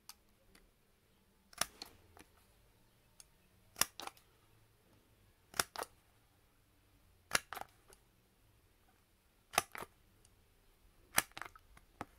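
Plier-style handheld single-hole punch cutting through paper, six times about every two seconds. Each punch is a sharp snap followed closely by a lighter click as the handles spring back.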